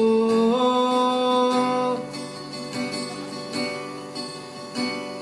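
A man sings one long held note over an acoustic guitar, which ends about two seconds in; the acoustic guitar then strums on alone, noticeably quieter.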